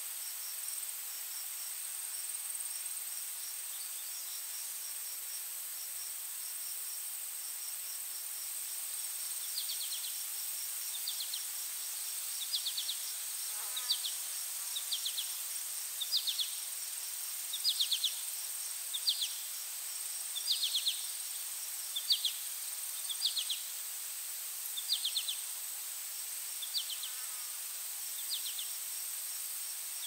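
Forest insects droning on one steady high note, with a short pulsed chirp repeated about every second and a half through the middle and later part.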